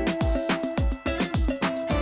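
Background electronic music with a steady, deep kick-drum beat and held melodic notes.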